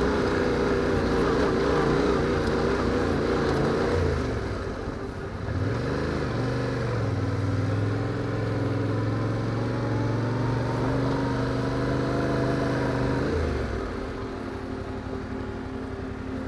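Yamaha Ténéré 700's parallel-twin engine pulling along under steady throttle, easing off about four seconds in, picking up again a moment later, then backing off near the end as the bike slows.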